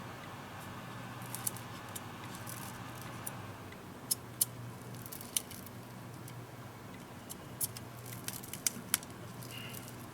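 Scattered small, sharp clicks and taps of tools and parts being handled while a tablet is taken apart, over a steady low hum.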